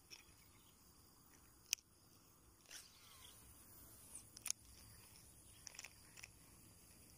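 Near-silent background broken by a few sharp clicks and ticks from a fishing rod and reel being handled during a cast. The loudest clicks come about two seconds in and past the middle, with a small cluster near the end.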